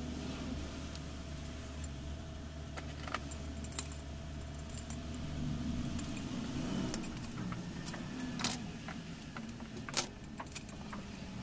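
Scattered metallic clinks and taps of hand tools and small chainsaw parts being handled on a steel workbench during disassembly, the sharpest near the end. A steady low hum underneath drops away about halfway.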